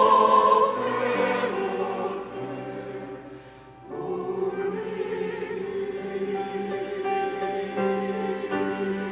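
Church choir singing a slow praise song in harmony. A loud held chord fades away about three seconds in, and the choir comes back in more softly with long sustained notes.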